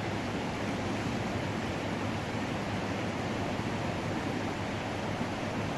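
Steady rushing of a flooded river, its floodwater flowing over the park ground with waves lapping at the edge.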